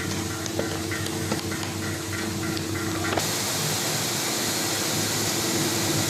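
Two-layer tablet press running with a steady hum and a quick, regular clicking, about three clicks a second, as it presses dishwasher tablets. About halfway through, the clicking stops and a steady hiss takes over.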